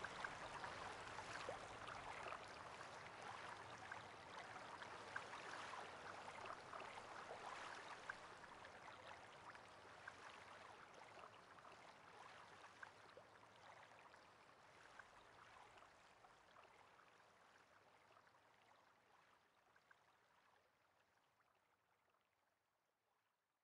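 Faint rain pattering, a soft hiss dotted with small drop ticks, fading out gradually until it is gone about two-thirds of the way through.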